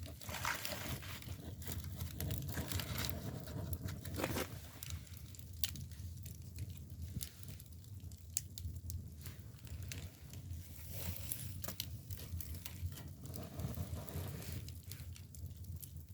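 Dry split bamboo firewood burning in an agungi firebox, crackling with many irregular sharp snaps and pops over a steady low rumble of the fire.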